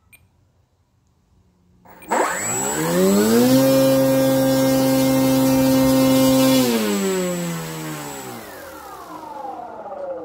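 Electric motor and propeller of an RC model plane spinning up quickly about two seconds in, holding a steady pitch for about three seconds with a thin high whine above it, then winding down in a long falling glide.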